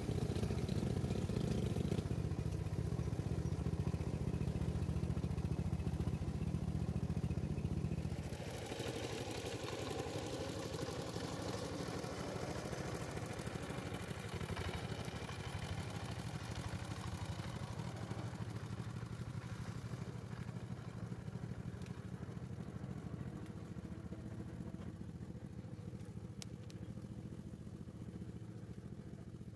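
Engine of a small truck heavily loaded with sacks of coffee beans, running steadily as it climbs a dirt mountain track. It drops sharply in level about eight seconds in, then fades slowly as the truck pulls away.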